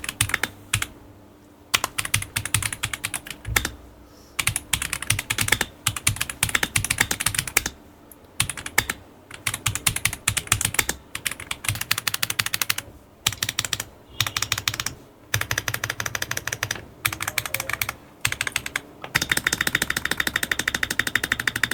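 RK M75 gasket-mounted mechanical keyboard with linear switches being typed on in fast bursts of key clacks, with short pauses between runs. A steady high tone sounds under the typing near the end.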